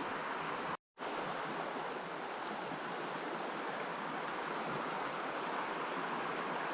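Mountain stream water rushing steadily, broken by a brief total dropout a little under a second in.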